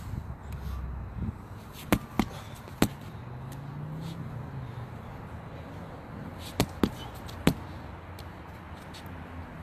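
Medicine ball thrown sideways against a wall twice, about four and a half seconds apart. Each throw is a quick run of three sharp smacks as the ball hits the wall, bounces and comes back to the thrower.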